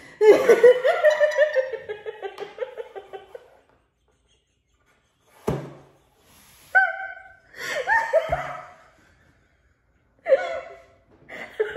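A person laughing hard in a quick run of bursts for about three seconds, then a pause, a sharp click and a few shorter bouts of laughter.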